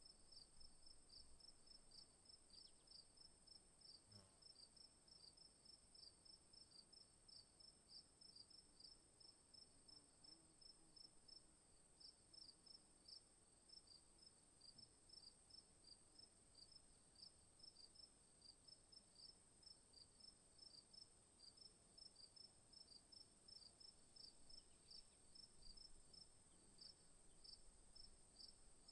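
Faint crickets chirping: an even run of high chirps, about three a second, over a steady high insect trill.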